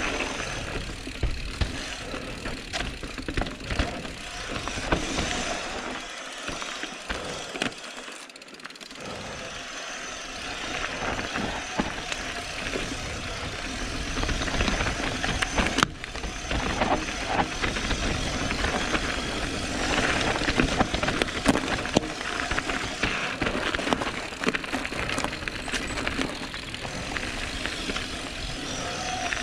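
Mountain bike, a Calibre Sentry, riding a rough dirt trail at speed: tyres rumbling over the ground and the bike rattling, with many sharp knocks. It eases off a little for a few seconds about six seconds in.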